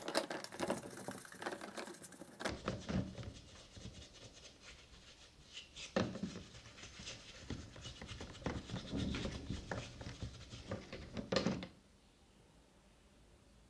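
Bristle brush scrubbing the plastic housing of a Crown 18V cordless drill in a tub of soapy water: irregular scratching strokes with wet sloshing, stopping near the end.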